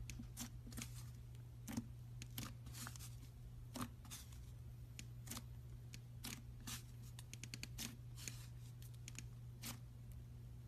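Slime being handled: irregular small clicks and crackling pops, over a steady low hum.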